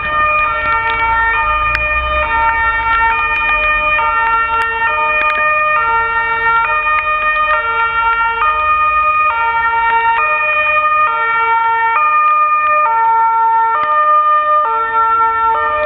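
Fire engine's two-tone siren alternating steadily between a high and a low note, each held about three-quarters of a second.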